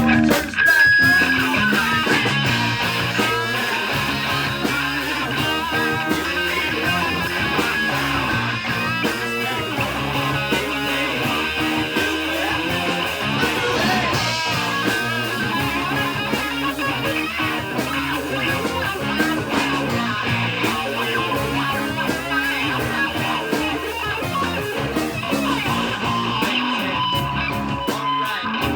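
A rock band playing live with electric guitar prominent. The playing is steady and continuous until just after the end.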